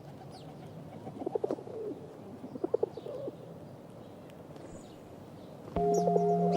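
Pigeon cooing in two short phrases, with faint chirps of small birds. Near the end a steady ringing music tone starts suddenly and is louder than the birds.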